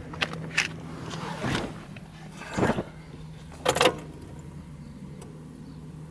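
Volkswagen Golf 5's 1.9 TDI diesel engine running with a steady low hum, while several short knocks and rustles of handling come in the first four seconds, the loudest about four seconds in.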